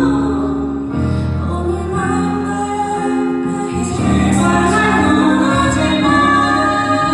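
Live band playing a slow Korean pop ballad, with keyboard, drums and guitar under sung vocals holding long notes.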